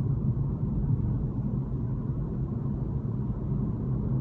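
Steady low rumble of road and wind noise inside the cabin of a moving BMW i3 electric car, with the windows down; there is no engine sound.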